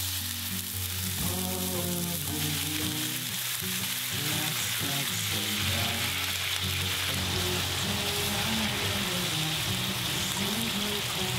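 Starch-dusted eggplant slices sizzling in oil in a frying pan. The sizzle grows louder about two seconds in as the soy sauce, sake and mirin seasoning goes in and bubbles around them.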